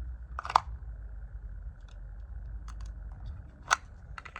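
Two sharp clicks from an airsoft pistol being worked in a drill, the louder about half a second in and the second about three seconds later, over a steady low rumble.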